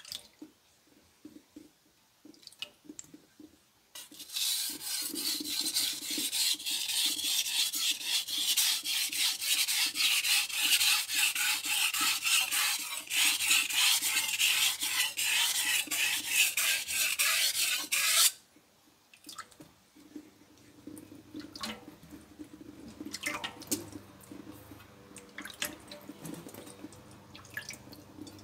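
Knife blade stroked quickly back and forth across a whetstone, a long run of steel scraping on stone that starts about four seconds in and stops suddenly some fourteen seconds later. A few lighter scrapes and clicks follow.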